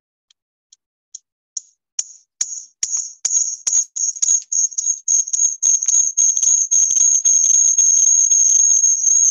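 High, bell-like jingling strikes, sparse at first and coming faster and faster, until they blur into one steady high ring.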